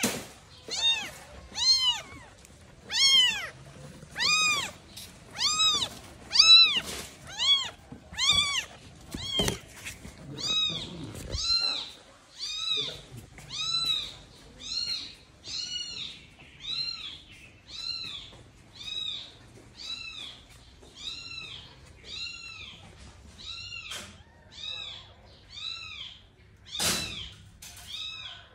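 A very young kitten mewing over and over, about once a second, each cry a short high mew that rises and falls. A sharp thump sounds about a second before the end.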